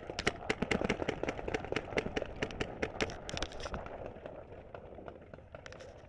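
A person sprinting: a quick, irregular run of footfalls and knocks, which thins out after about four seconds.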